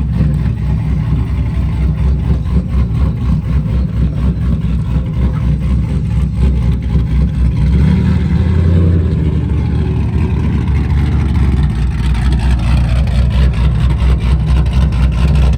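Chevrolet SS car engine running loud with a deep, pulsing exhaust note, revving up about halfway through and then settling back down.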